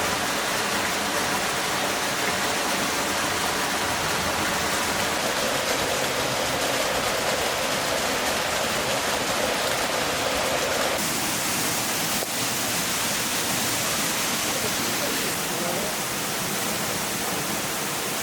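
Waterfall: a steady rush of falling and running water, its tone turning brighter and hissier about eleven seconds in.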